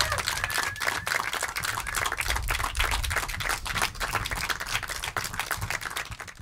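Rapid, irregular clicking and clattering, many clicks a second, over a low rumble: a noise passage in an avant-garde electronic set.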